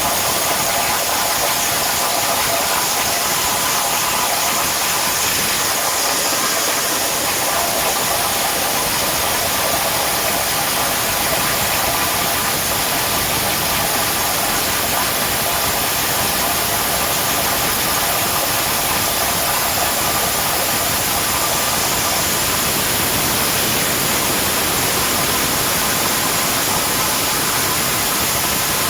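CNC plasma torch cutting 10 mm S255 steel plate: a steady, unbroken hiss with a faint whine in the middle range.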